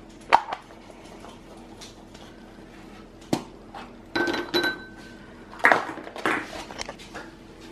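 Plastic Easter eggs being popped open and small foil-wrapped chocolate eggs dropping into a bowl: a few separate clicks and clatters, busiest about four and six seconds in.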